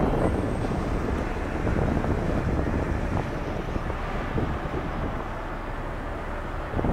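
Wind buffeting the microphone over the steady rush of a motorboat under way at sea, a little louder at the start.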